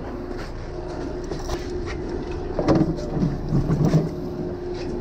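Boat engine running steadily with a low hum, water splashing against the hull. A few muffled voices come in around the middle.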